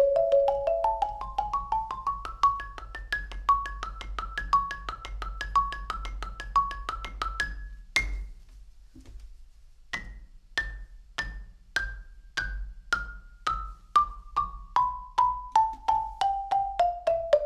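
Concert marimba played with four mallets: a fast run of notes climbing in pitch, a sharp accent about eight seconds in, a pause of about two seconds, then single ringing notes stepping down in pitch, about two a second and quickening near the end.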